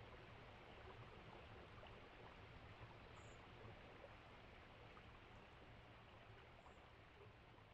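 Near silence: a faint, even hiss of recorded outdoor ambience, fading slightly toward the end, with two brief high chirps about three and six and a half seconds in.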